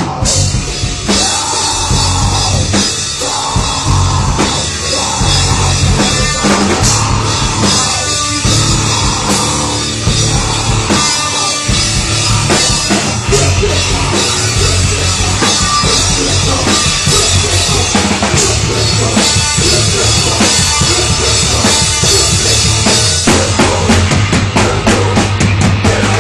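Live rock band playing loud and distorted, with drum kit and bass driving a steady beat under guitars, recorded from the audience.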